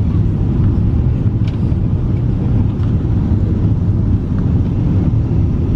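Boeing 777 cabin noise on final approach, a few metres above the runway: a loud, steady, deep rumble of the twin engines and airflow.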